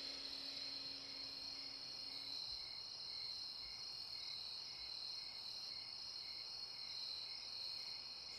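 Crickets chirping steadily as a night-time ambience, with a softer pulsing chirp repeating about twice a second.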